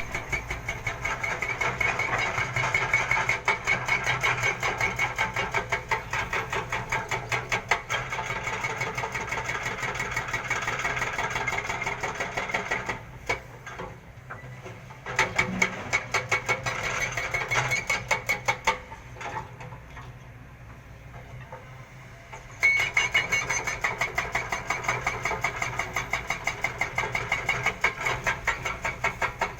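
Kobelco excavator's diesel engine running with a rapid, even beat. It goes quieter twice, for a couple of seconds each time, then comes back up to full level.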